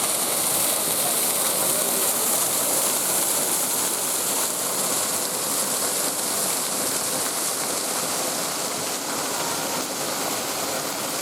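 Waterfall: water pouring over rocks in a steady, even rush.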